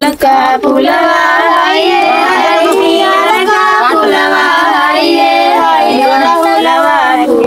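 Several girls' and women's voices singing a devotional folk song together, steadily and without pause apart from a brief break just after the start.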